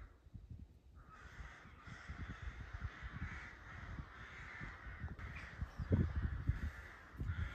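Crows cawing continuously in the background, a steady chorus of calls, with low rumble and bumps on the microphone that are loudest about six seconds in.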